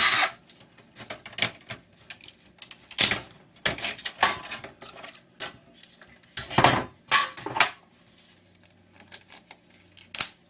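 Clicking and clattering of metal and plastic monitor parts being handled and pried apart by hand, in irregular clusters of knocks. A power-tool whir, likely a screwdriver backing out screws, cuts off just after the start.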